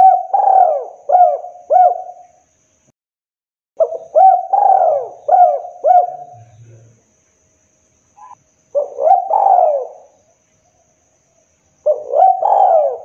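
Spotted dove cooing: four phrases of several arching coo notes each, with a pause of one to two seconds between phrases.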